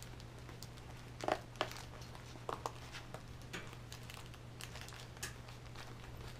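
Craft supplies and plastic pockets being handled by hand: scattered crinkles, rustles and light taps, spaced a second or so apart. A steady low hum runs underneath.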